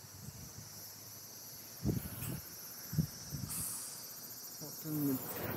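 Insects chirring steadily in high-pitched bands, with two soft thumps about two and three seconds in.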